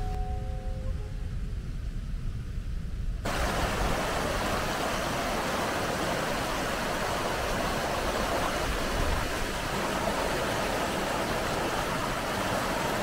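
Steady rushing of the Dog Falls waterfall on the River Affric, an even roar of falling water that starts abruptly about three seconds in; before it there is only a low rumble.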